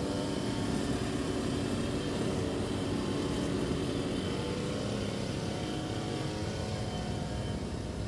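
Steady outdoor background noise with a hum like road traffic, even throughout.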